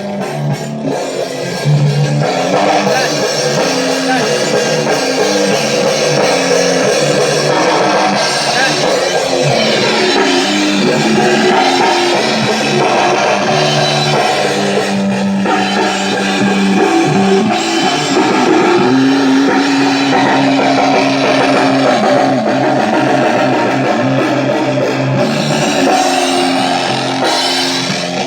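Rock band jam session: a drum kit and guitars playing a loud, repeating riff.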